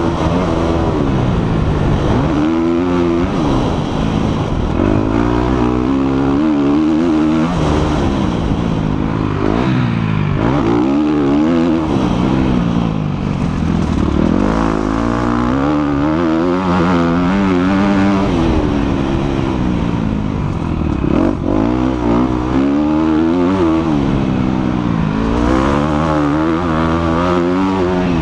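A 250cc four-stroke motocross bike's engine revving hard on a lap of a dirt track, recorded on board. Its pitch climbs and drops over and over every few seconds as the rider accelerates, shifts and backs off for corners.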